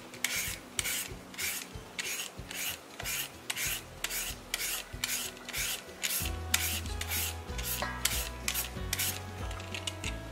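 Julienne peeler rasping strips off a peeled green papaya in quick, even strokes, about three a second.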